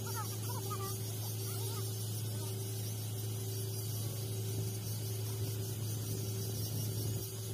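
TIG (argon) welding of a steel pipe joint with the arc running continuously: a steady low hum with an even hiss over it.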